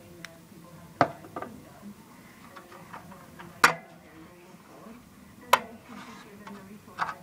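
Sharp metallic clicks and knocks from a hand handling the metal case of a WWII T-19/ARC-5 aircraft transmitter, about five of them at irregular intervals.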